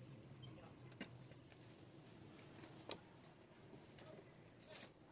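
Near silence: faint room tone with a low hum, broken by a few faint clicks. One comes about a second in, a sharper one near the three-second mark, and a brief rustle near the end.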